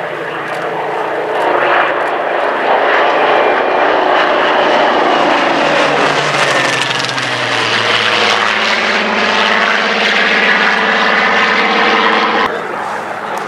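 Piston-engined Second World War fighters, a Hawker Hurricane with its Rolls-Royce Merlin V12 among them, flying past in formation. The engine drone builds, its pitch falls about halfway through as they pass, and it drops off abruptly near the end.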